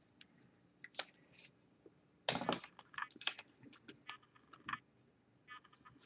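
Hands handling a trading card and clear plastic card holders on a padded playmat: a string of light clicks, taps and rustles, the loudest cluster about two seconds in.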